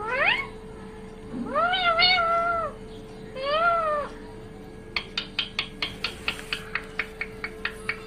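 Rose-ringed parakeet giving drawn-out meow-like calls that rise, hold and fall, three in the first half, then a quick run of short sharp notes about five a second. A faint steady hum lies underneath.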